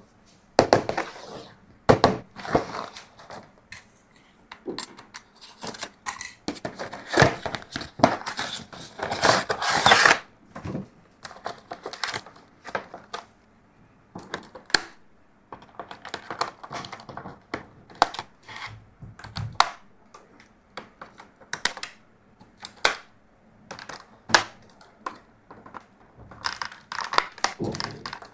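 Toys and plastic packaging being handled: irregular clicks and taps with crinkling rustles, busiest about a third of the way in.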